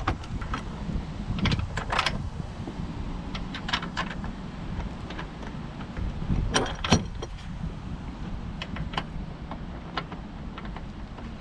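Light metal clinks and knocks as an aluminium hood latch and its bolts are handled and fitted onto a Jeep Wrangler JK, with a steady low rumble underneath. The louder knocks come about a second and a half in, and again twice about halfway through.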